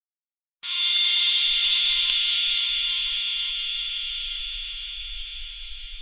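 Autoclave venting steam: a loud hiss starts abruptly just over half a second in and slowly fades, with a steady high whistling edge to it.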